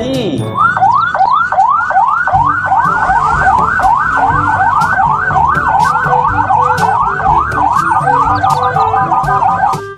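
Toy police car's electronic siren wailing, its pitch sweeping up and down about three times a second. It quickens into a faster warble near the end and stops just before the end.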